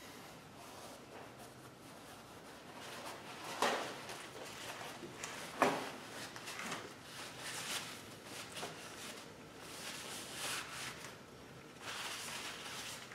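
Hand work on a transmission teardown: parts and tools being handled, with shuffling and scraping throughout and two sharp knocks, about three and a half and five and a half seconds in, the second the louder.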